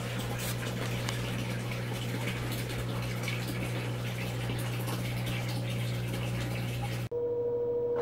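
Electrolux LFE14 front-loading washing machine's drain pump running with a steady low hum, pumping out the rinse water while water gurgles in the drum. About seven seconds in the sound cuts abruptly to a steady higher whine of the machine in its spin cycle.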